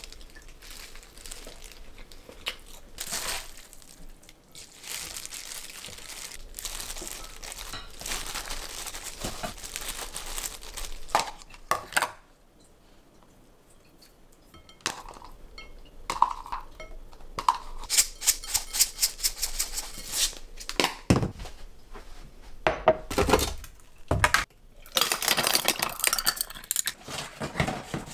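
Plastic-gloved hands tossing red-seasoned cabbage in a glass mixing bowl: a continuous wet crinkling and rustling of the gloves. After a quiet pause come scattered clinks and light knocks of dishes and a plastic container being handled. Near the end, plastic snack packaging rustles.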